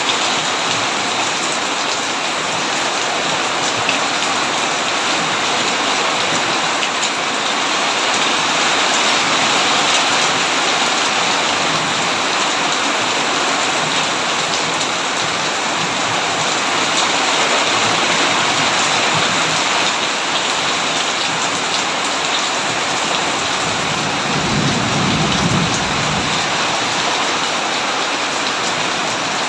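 Heavy rain falling steadily on a tin roof, with a low rumble of thunder lasting about two seconds late on.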